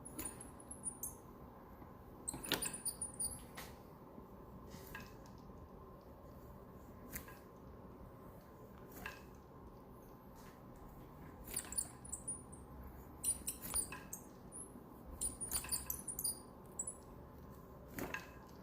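Worn alternator bearing on a GM 3800 V6 squeaking and clicking in short irregular clusters over a faint steady hum: the sound of a bad bearing.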